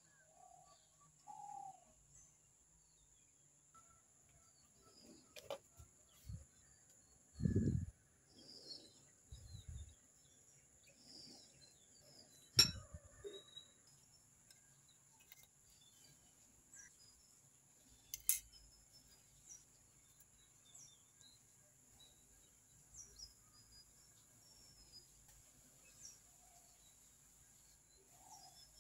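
Faint background of small birds chirping over a steady high-pitched insect drone. A few handling noises break through: a dull thump about seven seconds in, a sharp click, the loudest sound, about twelve seconds in, and a lighter click about eighteen seconds in.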